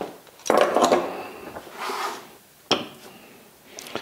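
Servo motor parts and tools being handled on a workbench mat: a scraping clatter about half a second in, then a sharp knock a little before the end.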